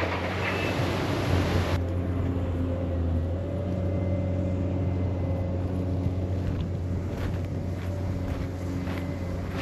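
A large engine running steadily with a low, even hum. A broad hiss over it cuts off abruptly about two seconds in.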